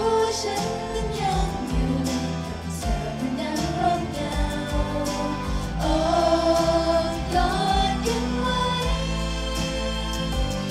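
Female pop group singing live into handheld microphones over amplified backing music with a steady beat.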